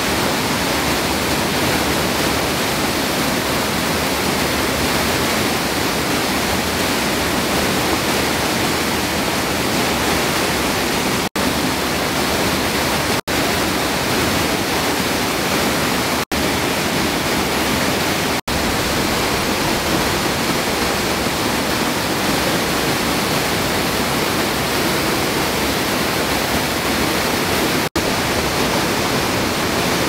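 Waterfall cascading over rock: a loud, steady rush of falling and splashing water, broken by a few split-second dropouts.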